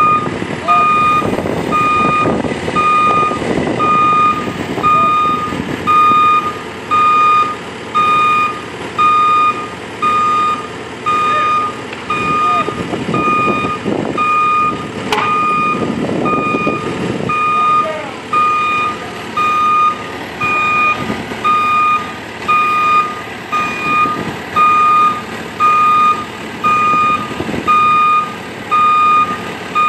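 Telehandler's backup alarm beeping steadily, about one beep a second, over the machine's engine running and swelling as it works the load.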